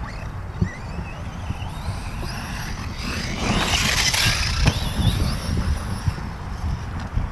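Reely Raptor 6S RC desert buggy driving on dirt: its electric motor whines up in pitch several times as it accelerates, louder in the middle over a low rumble, with a single knock a little after the middle as it lands a jump.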